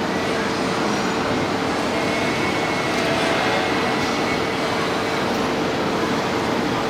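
Radio-controlled scale model machine running, giving a steady hum at one constant pitch over an even background noise.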